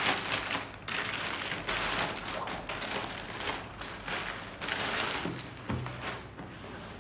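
Plastic courier mailer bag rustling and crinkling in irregular bursts as a cardboard shoebox is pulled out of it, with a few light thuds of the box being handled.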